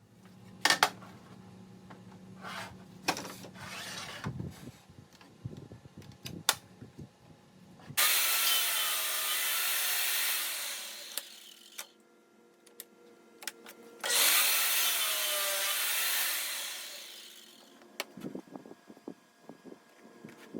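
Electric power saw cutting wood twice: each run starts suddenly, lasts about two seconds, then winds down. Before the cuts, faint knocks and clicks.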